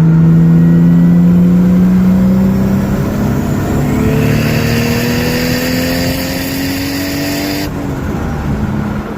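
Turbocharged 1JZ straight-six, running through a Magnaflow muffler, accelerating in a long pull. The engine note climbs steadily, a hiss comes in about halfway, and the pull cuts off sharply about a second and a half before the end.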